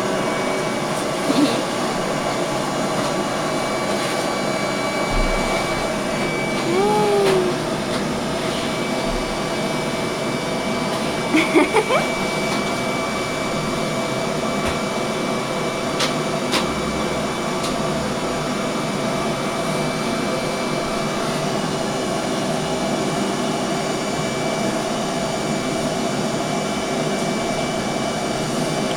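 Steady drone of an electric motor, like a household appliance running, holding one pitch. A few brief clicks and short pitch glides sound over it.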